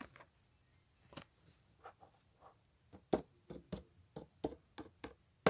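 A series of small, sharp clicks: a few scattered ones, then a quicker, irregular run from about three seconds in.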